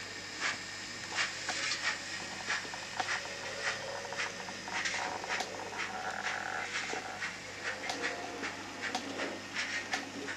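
Sound decoder of an Arnold N-scale model of the BR 18.521 steam locomotive playing steam chuffs through its small speaker as the model runs slowly, about two puffs a second.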